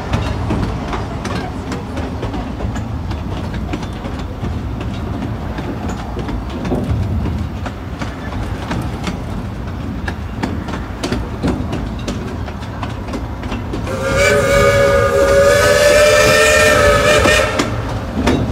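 Cedar Point and Lake Erie Railroad steam train running, heard from aboard: a steady rumble with clicks from the track. About fourteen seconds in, a steam whistle sounds one long chord lasting about three and a half seconds.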